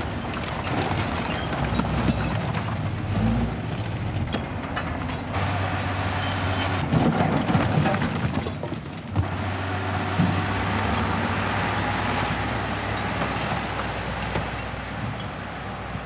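A heavy diesel machine runs with a steady low drone while rubbish clatters, scrapes and tumbles down a slope, loudest about halfway through.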